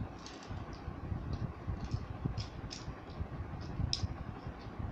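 Small plastic transforming toy car being twisted in the hands, its parts clicking irregularly over soft handling bumps, with the sharpest click about four seconds in.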